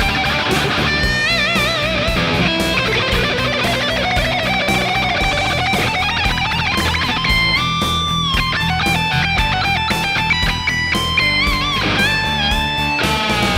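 Electric guitar played through a Sonicake Pocket Master amp modeler on a high-gain distorted tone: lead lines of held notes with wide vibrato over a driving low rhythm part and a steady beat.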